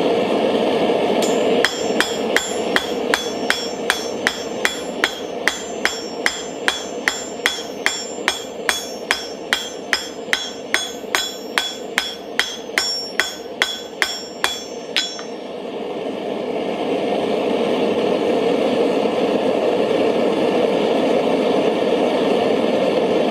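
Hand hammer striking hot steel on an anvil, about three ringing blows a second for some thirteen seconds, then stopping. Under it, the small propane forge's burner runs with a steady roar.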